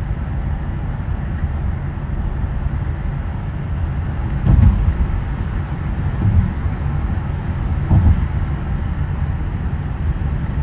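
Road noise inside a moving car: a steady low rumble of tyres and engine, with a few soft thumps about halfway through.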